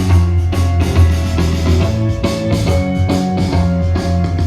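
Instrumental break in an upbeat Christian pop-rock song: drum kit with a steady beat, bass and guitar, no singing.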